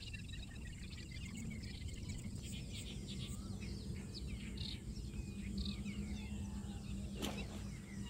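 Small birds chirping and trilling around a pond, over a steady low hum, with one sharp click about seven seconds in.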